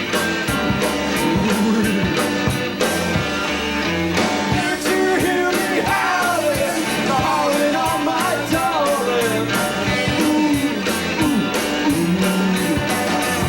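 Rock band playing loudly: electric guitar and drums on a steady beat, with pitch-bending lead lines in the middle.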